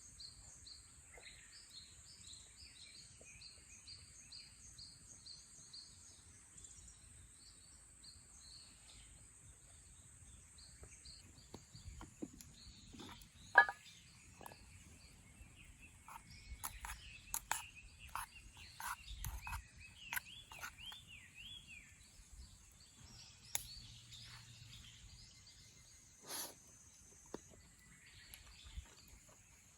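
Outdoor ambience: birds chirping over a steady high-pitched drone. A run of sharp clicks and knocks comes in the middle, the loudest about 13 seconds in.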